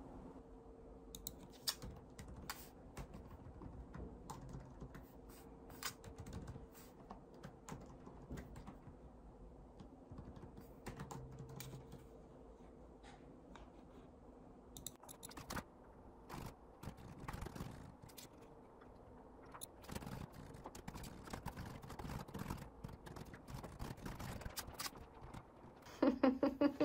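Typing on a laptop keyboard: light, irregular key clicks over a faint steady hum. A brief voice cuts in near the end.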